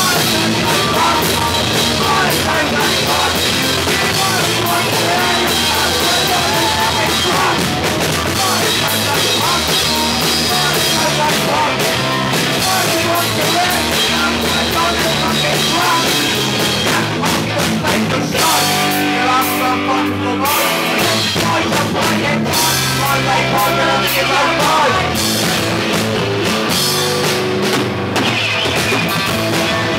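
Live hardcore punk band playing loud, with electric guitar and a drum kit.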